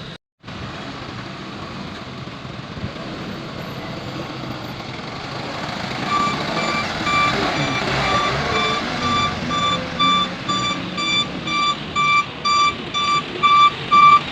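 Heavy diesel machinery running, then from about six seconds in a reversing alarm beeps steadily, about two beeps a second, getting louder toward the end.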